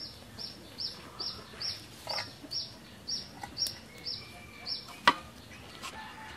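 A small bird calling a regular series of short, high, slightly falling chirps, a little over two a second, which stop near the end. About five seconds in, a sharp clank as an aluminium cooking pot is set down on the wood-fired stove; this is the loudest sound.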